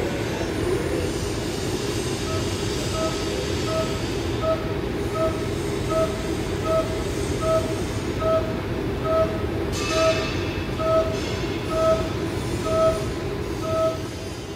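Haas VF-2 Super Speed CNC vertical mill high-speed roughing 4140 pre-hard alloy steel with a 5-flute carbide end mill: a steady cutting and spindle noise with a tone that pulses about once a second as the tool sweeps through its roughing toolpath, the pulses growing louder toward the end.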